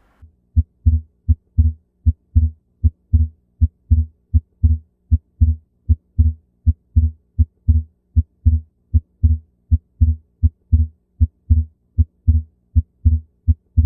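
Recorded heart sounds heard through a stethoscope: a steady lub-dub rhythm of low thumps over a faint steady hum. It is played as an example of fixed splitting of the second heart sound, the sign of an atrial septal defect.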